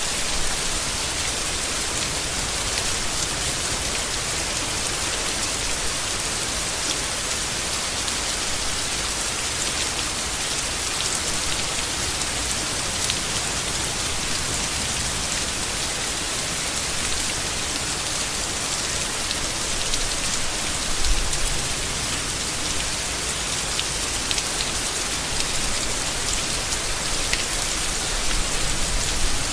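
Steady rain falling on leaves, a dense even hiss of drops, with brief low rumbles about two-thirds of the way through and again near the end.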